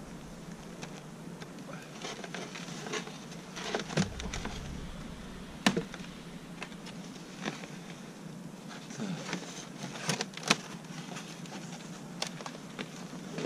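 Honeybee winter cluster giving a steady buzz from an opened hive, with several sharp knocks and clicks as the foam hive's parts and lid are put back on.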